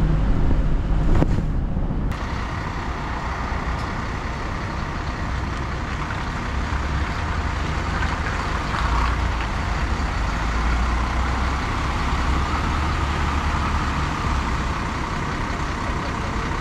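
Inside a city bus while it is driving: the steady rumble of the engine mixed with road noise.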